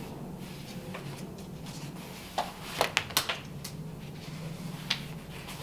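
Fabric boxing hand wrap being pulled and wound around the hand: quiet rustling with a cluster of short, sharp swishes a little past halfway and one more near the end, over a steady low hum.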